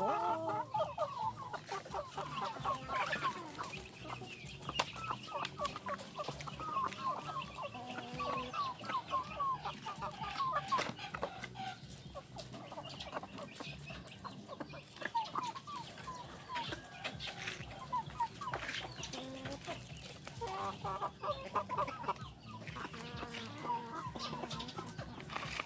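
Several chickens clucking and chattering in short calls, with a few sharp clicks in between.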